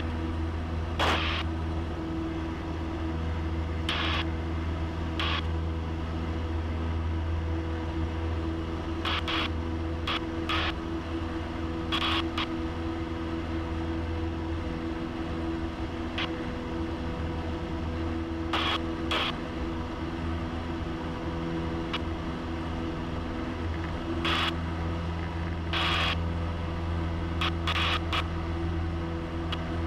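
Small single-engine plane's piston engine and propeller droning steadily in the cockpit at climb power just after takeoff. Brief crackles come through every few seconds.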